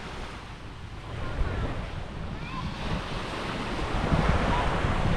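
Small waves washing onto a sandy beach, with wind buffeting the microphone; the surf grows louder near the end.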